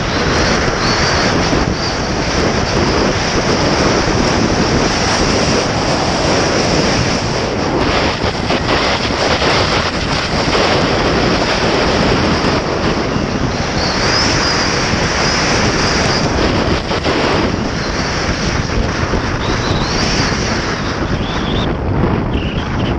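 Strong wind rushing over the microphone of a skier's body-worn camera at speed, mixed with skis scraping over packed, groomed snow.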